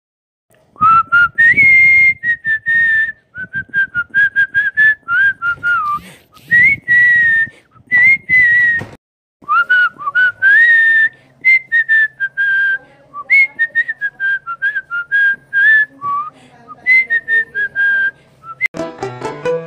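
A clarinet as a cartoon sound effect, sounding a wobbly tune of many short, high, whistle-like notes with slides up and down. A faint low hum runs under the notes for several seconds past the middle.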